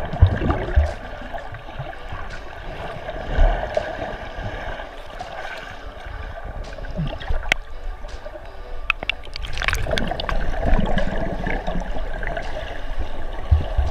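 Muffled churning and bubbling of sea water stirred by swimmers' arm strokes and kicks, heard with the microphone underwater, with scattered sharp clicks that cluster about nine to ten seconds in.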